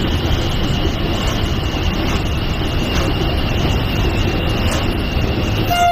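Cab noise of a WAP7 electric locomotive on the move: a steady low rumble with a thin, steady high whine over it. The locomotive's horn comes on right at the end.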